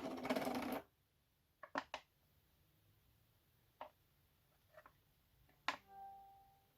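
Light clicks and knocks of a phone and a watch being handled on a plastic wireless charging station, with a rustle in the first second. Just before six seconds in there is a short pitched tone that fades out.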